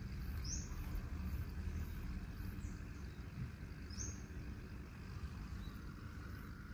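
Quiet outdoor ambience: a steady low rumble with three short, high bird chirps.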